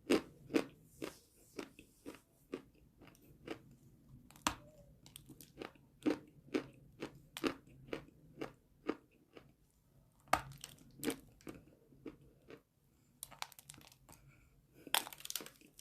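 Close-up crunching and chewing of hard, dry chalk-like pieces: a run of sharp crunches, roughly two a second, with a few louder bites about four, ten and fifteen seconds in.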